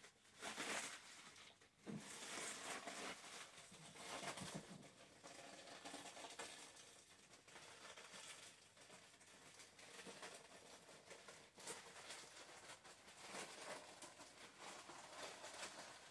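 Faint, irregular rustling and crinkling of a clear PVC plastic dress being unfolded and handled.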